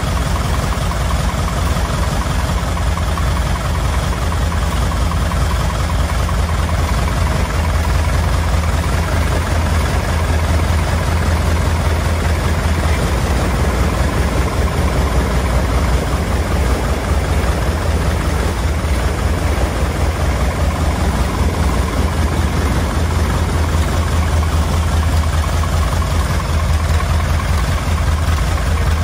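A light aircraft's piston engine running steadily with its propeller turning, on the first ground run of a newly built airplane.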